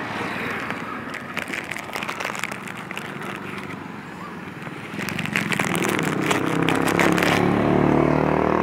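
A motor vehicle engine running, coming in about five seconds in and growing louder, with scattered crackling before it.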